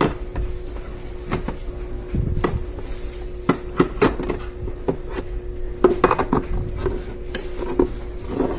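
Metal food cans being picked up, set down and shifted on a pantry shelf: a string of irregular clinks and knocks, over a steady hum.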